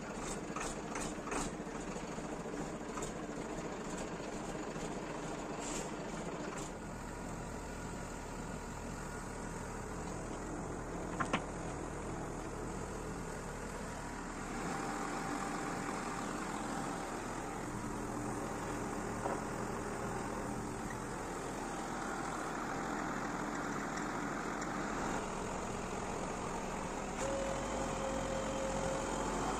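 Old Sisu truck's diesel engine idling steadily, with a few clicks early and a single sharp knock about eleven seconds in. From about halfway a steady whine joins, and near the end it grows louder as the truck's cable loader hauls the site-hut container up onto the frame.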